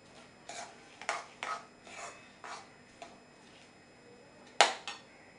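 A metal spoon scraping and stirring a thick, sticky sesame-jaggery mixture around a metal kadai, in short strokes about two a second. Then one sharp metallic knock of the spoon against the pan about four and a half seconds in.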